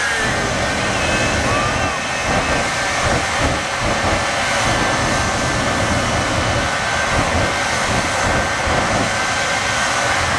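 Shockwave jet semi truck's three jet engines running steadily at high power with afterburners lit while the truck stands still, a loud continuous roar.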